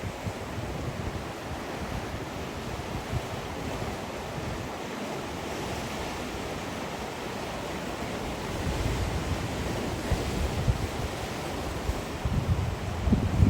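Sea waves washing ashore in a steady surf. Wind buffets the microphone in gusts that grow stronger in the second half.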